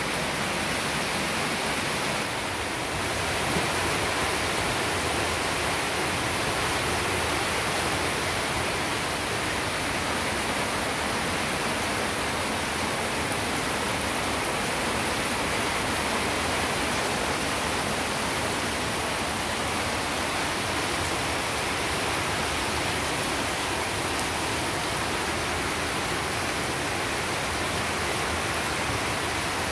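Heavy rain falling steadily onto puddles and wet ground, a constant even hiss.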